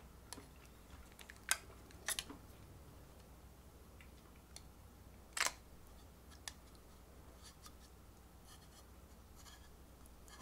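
Metal spoon clicking and scraping against a thin plastic cup while scooping out jelly: a few sharp clicks with fainter ticks between, the loudest about five and a half seconds in.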